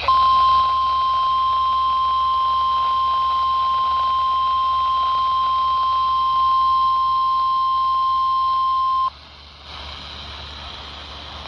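NOAA Weather Radio 1050 Hz warning alarm tone: one loud, steady tone held for about nine seconds, signalling that a watch or warning broadcast follows. It cuts off suddenly, leaving the faint hiss of the radio reception.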